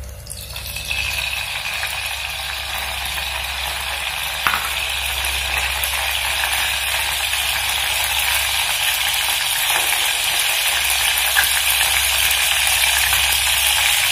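Coconut oil heating in a pot on a gas stove, sizzling steadily and growing gradually louder, with an occasional faint click.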